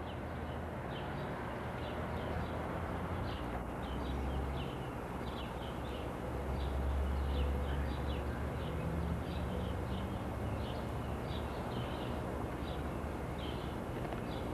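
Birds chirping: many short chirps repeated through, over a low steady rumble.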